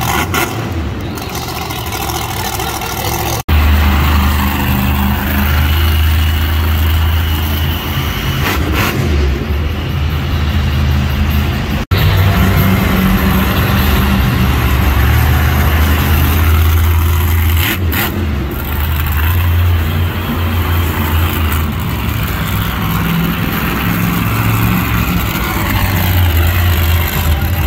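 Monster truck's supercharged V8 engine running at high revs, rising and falling. The sound cuts out for an instant twice.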